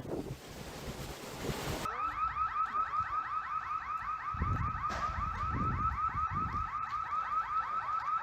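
Wind buffeting the microphone, then, about two seconds in, a car alarm starts up with a rapid, evenly repeating electronic chirp, several a second. A few low rumbles come under it midway.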